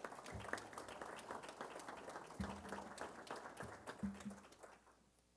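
Audience applauding: a dense patter of hand claps that fades out near the end, with a few dull thumps along the way.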